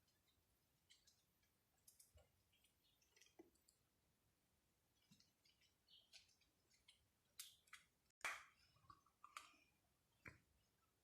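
Faint, irregular clicks and small pops of slime being squeezed and worked, with a louder crackle about three-quarters of the way through.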